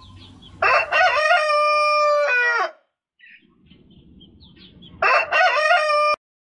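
Rooster crowing twice as a smartphone alarm sound: one long crow with a falling end, then a second crow that cuts off suddenly as the alarm is switched off.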